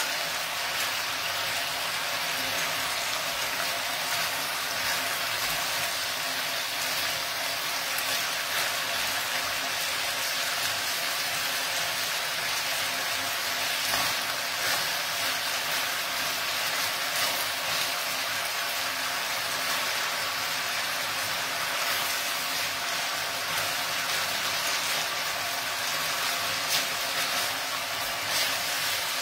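Chicken involtini frying in a pan, a steady sizzle with fine crackling.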